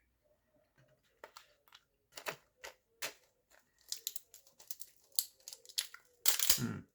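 Plastic snack packaging being handled and opened: a string of short crinkles and clicks, then a longer, louder rustle about six seconds in.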